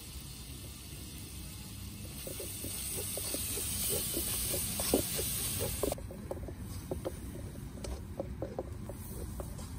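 A high hiss swells and then cuts off suddenly about six seconds in, over a steady run of light, irregular crackles and a low rumble.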